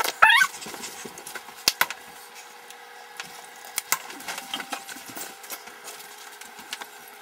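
Scattered knocks and clatter of utensils and dishes at a kitchen counter and stovetop, with a brief high wavering squeal just after the start.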